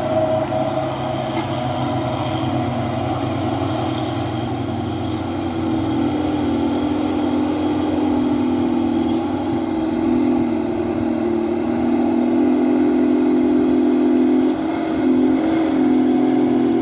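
Heavy dump truck's diesel engine running under load, a steady, loud droning note that grows stronger from about five seconds in, with a brief dip near the end.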